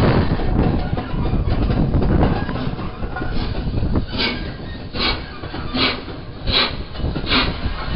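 LNER A1 Pacific No. 60163 'Tornado', a three-cylinder steam locomotive, moving slowly with its train. The wheels rumble and clatter over the track, and from about halfway in its exhaust beats come steadily, a little more than one a second.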